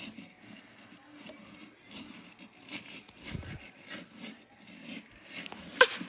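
Brush scrubbing and swishing inside a garbage disposal, working under the rubber gasket: a soft, irregular rubbing and scraping. Near the end a child gives a short, high, rising squeal.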